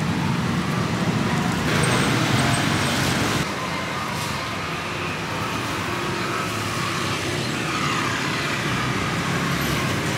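Steady road traffic noise from passing vehicles, dropping a little in loudness about three and a half seconds in.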